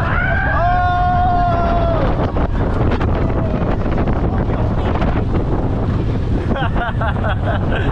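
Heavy wind rush buffeting the microphone while riding the Slinky Dog Dash roller coaster. Near the start comes one held, steady-pitched cry from a rider, and near the end there are brief voices.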